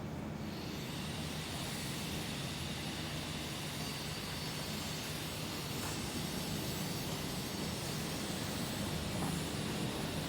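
Leonardo AW189 helicopter's twin turboshaft engines and rotor running steadily, with a low drone under a high turbine whine and hiss that comes in about half a second in and builds slightly.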